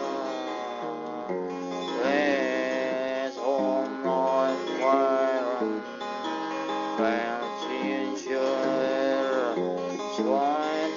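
Background music: acoustic guitar strumming under a sliding, gliding melody line.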